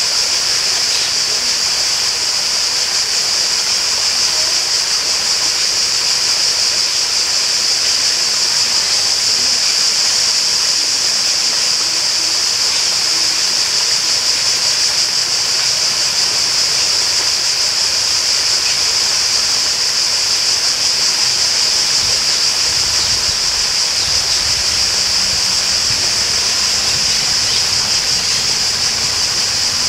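Steady rushing of running water, unbroken throughout, with a loud steady high-pitched hiss laid over it.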